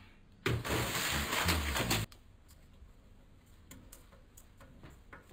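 Kitchen handling noises: a loud rustle with low thumps under it, starting and stopping abruptly and lasting about a second and a half, then a few light clicks and knocks.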